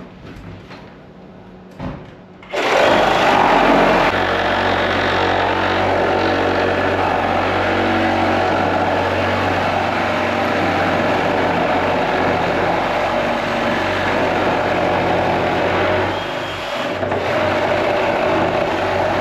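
A handheld power tool starts about two and a half seconds in and runs steadily at full speed, easing off briefly near the end. A couple of knocks come before it starts.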